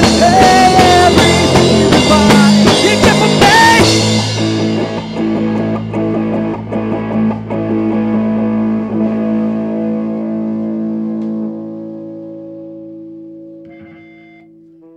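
Rock band with distorted electric guitars, bass and drum kit playing the last bars of a song. About four seconds in the drums stop on a final chord, which rings on and fades out slowly.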